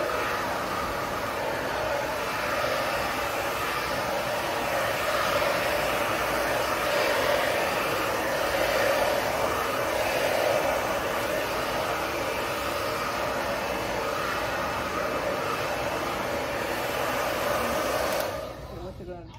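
Hand-held hair dryer blowing steadily as hair is blow-dried, switched off abruptly about a second before the end.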